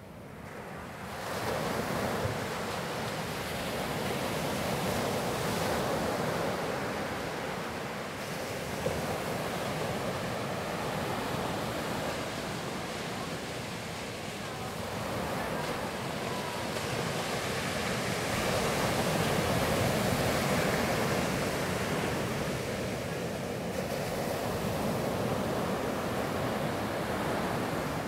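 Ocean surf breaking and washing up a sandy beach, the sound swelling and easing in slow surges over several seconds.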